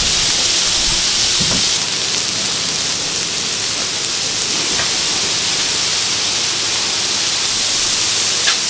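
Chicken and chicken-heart skewers sizzling on a flat steel griddle in bubbling fat: a loud, steady hiss, with a few faint clicks.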